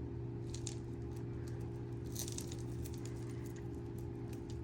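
Metal jewelry chains and bangles being handled while being untangled: faint, scattered clinks and rustles, with a brief cluster about half a second in and another just after two seconds, over a steady low hum.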